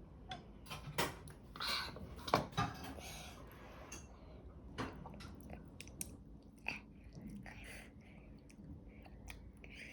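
Close-up eating sounds: someone chewing food, with scattered small clicks and soft knocks, the sharpest about two and a half seconds in.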